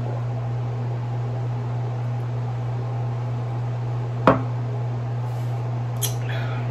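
Steady low hum, with one sharp knock of a drinking glass being set down on a wooden table about four seconds in, and a smaller short click near the end.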